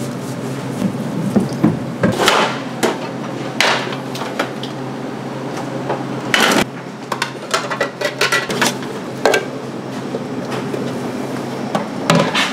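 Kitchen work at a counter: irregular knocks, clicks and short clatters of utensils and dishes being handled, over a steady low hum of kitchen equipment.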